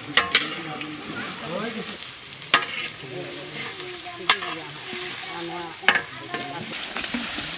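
Sliced onions sizzling in hot oil in a large kadai, stirred with a long metal ladle that clanks sharply against the pan a few times.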